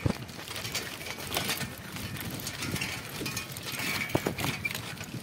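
Bicycle rattling and clicking over a rough, patched road, with tyre and wind noise underneath and irregular knocks, the sharpest at the start and about four seconds in.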